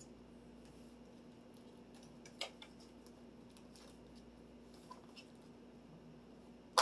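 Scattered light clicks and taps of small metal parts and tools being handled while a bicycle rack is taken apart, with one sharp click near the end, over a faint steady hum.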